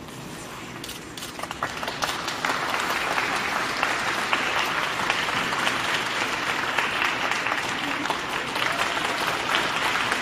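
Audience applauding. The clapping starts thin, swells to full applause about two seconds in, and then holds steady.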